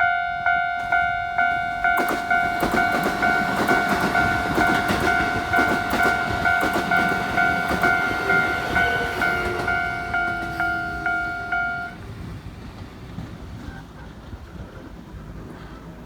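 Japanese railway level-crossing alarm ringing about twice a second, cutting off about twelve seconds in. Over it a Keikyu electric train passes over the crossing from about two seconds in, its wheels clicking over the rail joints, and the train noise fades away as the alarm stops.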